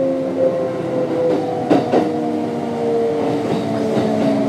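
Kintetsu 3200 series electric train's Mitsubishi GTO-VVVF inverter and traction motors whining, with several tones slowly falling in pitch as the train slows. Two knocks about two seconds in.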